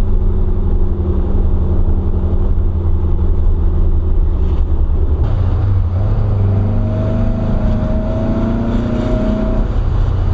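Air-cooled VW 1900 cc flat-four engine on twin 40 IDF carburettors, running steadily while driving, then about six seconds in climbing slowly in pitch as it accelerates for a few seconds. It pulls without a flat spot, the carbs synced and working well.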